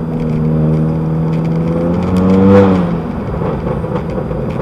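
Turbocharged 1.5-litre four-cylinder engine of a Honda Accord Sport, breathing through a catted aftermarket downpipe and front pipe with resonator and muffler deleted, pulling under acceleration. It is heard from inside the closed cabin. The note climbs steadily in pitch and loudness to a peak about two and a half seconds in, then falls away as the engine comes off the load.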